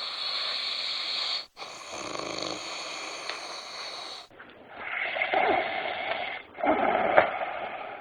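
Men snoring in excerpts from several recordings spliced together, changing abruptly twice. A snore comes about two seconds in, then two long snores in the second half.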